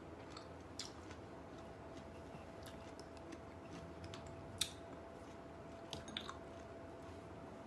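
A person chewing a strawberry with the mouth closed: soft, wet mouth clicks and squishes, with a sharper click about halfway through. A faint steady hum sits underneath.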